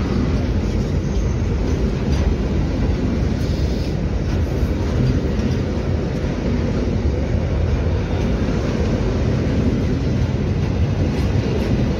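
Container freight train passing close by: steel wheels of loaded container flat wagons rolling over the rails in a steady, deep rumble.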